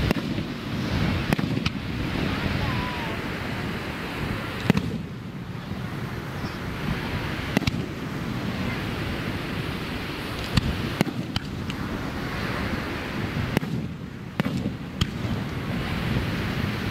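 Aerial firework shells bursting: about ten sharp bangs at irregular intervals, a second or several apart, over a steady rushing background noise.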